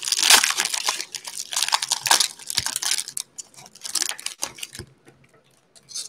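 Plastic cello-pack wrapper of a basketball trading-card pack being torn open and crinkled by hand. A dense crackle lasts about three seconds, thins to scattered crinkles that die away near five seconds, and one short crinkle comes just before the end.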